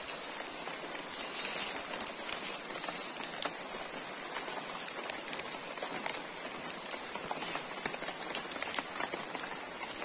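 Rain falling and dripping on the leaves of rainforest undergrowth: a steady patter with many scattered drip ticks, over a steady high-pitched drone.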